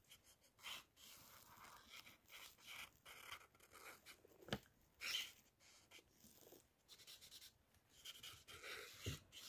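Faint rubbing and scratching of a felt-tip marker's nib stroking across paper as a drawing is coloured in, with one short tick about four and a half seconds in.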